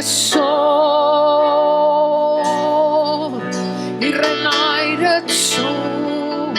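Slow worship song: a singer holds long notes with vibrato over a sustained accompaniment, one held note of about three seconds, then a new phrase.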